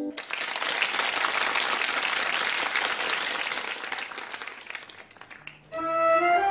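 Cinema audience applauding, a dense clatter of many hands that swells and then dies away over about five seconds; music starts again near the end.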